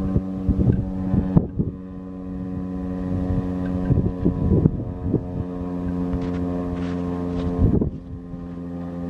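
Federal Signal STH-10A electromechanical siren sounding a steady, low tone with several pitched layers, fading and swelling as its rotating head turns away and back. Wind buffets the microphone.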